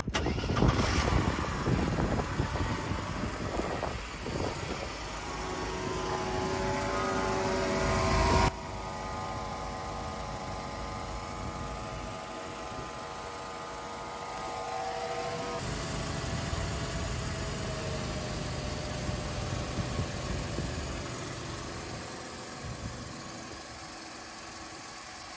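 Car engine running, its pitch rising as it revs or pulls for the first eight seconds or so, then an abrupt cut to a steadier, quieter engine note that fades lower near the end.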